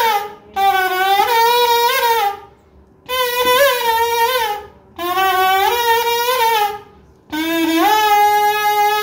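A melody blown on a short length of broken pipe held to the mouth like a flute, a reedy tone with wavering pitch. It comes in short phrases with brief breaks, and the last is a long held note starting about seven seconds in.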